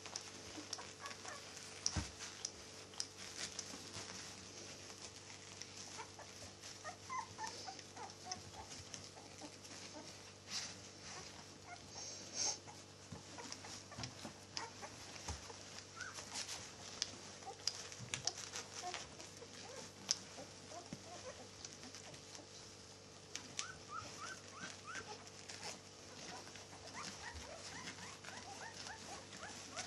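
Eleven-day-old Old English Sheepdog puppies giving short, high squeaks and whimpers at scattered moments, with a quick run of squeaks near the end, amid soft clicks of movement on the bedding.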